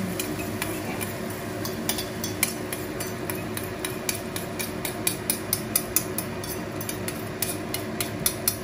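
Metal fork clinking and scraping against the egg bowl as the last of the beaten egg is worked out over the frying pan: a run of sharp clicks that come faster and louder in the second half, over a steady low hum.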